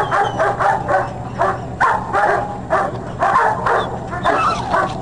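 Military working dog barking rapidly and without a break, two to three barks a second, while held on a leash and facing a decoy in a padded bite sleeve, as in bite-work training.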